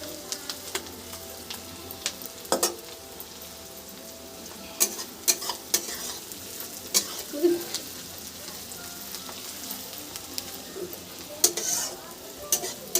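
Onion and spice masala frying in oil in a kadhai, with a steady sizzle, while a metal spatula stirs and scrapes the pan, giving sharp clinks every few seconds.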